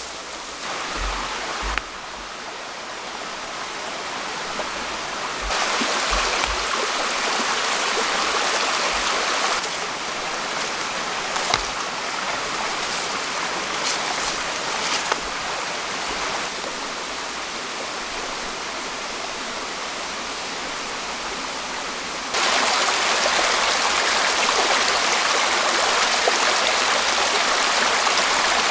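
A stream flowing steadily, a continuous rushing of water whose loudness jumps up or down abruptly several times, with a few faint clicks over it.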